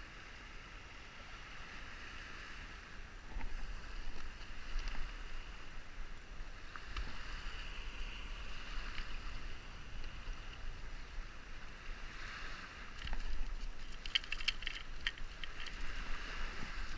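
Small waves washing onto a pebble shore, with wind rumbling on the microphone. A run of sharp little clicks comes about two seconds before the end.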